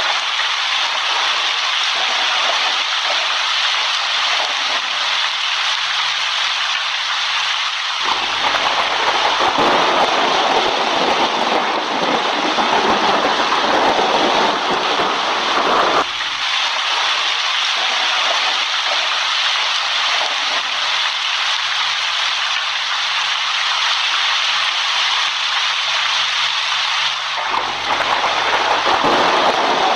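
Steady heavy rain falling. A deeper, fuller stretch runs from about a quarter of the way in to about halfway, and comes back near the end.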